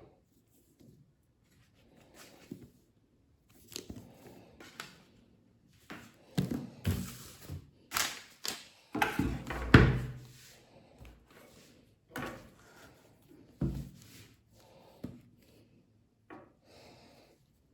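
Cardboard packaging of an iPad being handled and opened: irregular rubbing and sliding with a few light knocks, busiest and loudest about halfway through.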